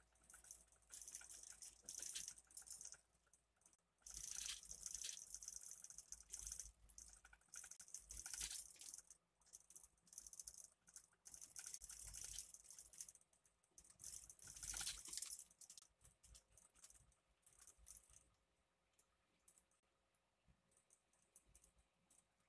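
Faint rattling and clicking in a moving truck cab, coming in bursts with a faint low road rumble under them, fading to near silence after about sixteen seconds.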